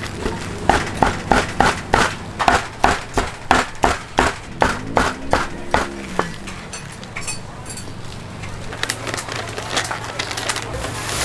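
Meat cleaver chopping roasted crispy pork ribs on a thick wooden chopping block, in quick even strokes of about three a second, each a sharp knock on the wood. The chopping stops about six seconds in.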